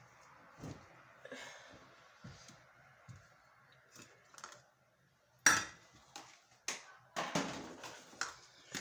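Handling noises of kitchen containers: faint clicks, then one sharp knock about five and a half seconds in, followed by several more knocks and clinks with rustling.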